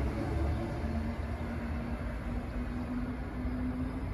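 Class 319 electric multiple unit running, with a steady motor hum over a low rumble, slowly fading.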